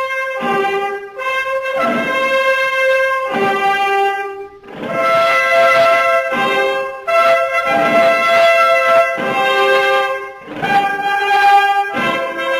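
Brass instruments playing a slow fanfare of long held notes, each note starting sharply and phrased with short breaks. This is the instrumental opening before the saeta is sung.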